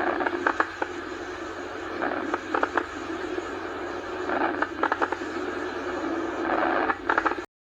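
Lung crackles (crepitant rales) over breath sounds: recurring clusters of short crackling clicks riding on a steady breathing noise, cutting off near the end. It is an adventitious lung sound, a sign that something in the lung is abnormal.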